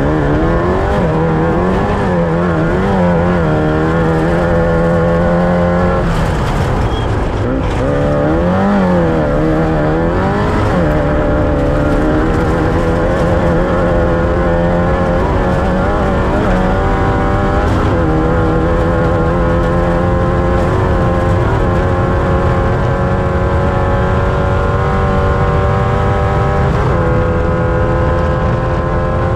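Off-road race vehicle's engine at race pace, the revs swinging up and down through the first ten seconds or so, then a long pull with the pitch climbing slowly and steadily. A constant rough rumbling noise runs underneath.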